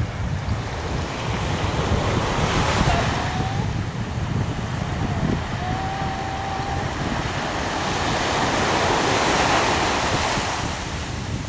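Small ocean surf breaking and washing up a sand beach, swelling twice as waves run in, with wind buffeting the microphone.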